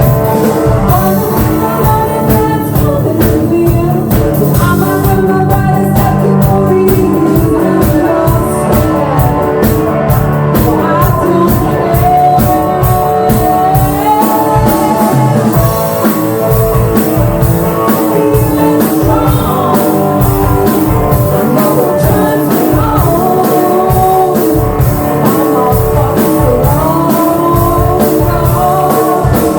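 Live rock band playing: a steady, driving drum beat under guitar, with singing.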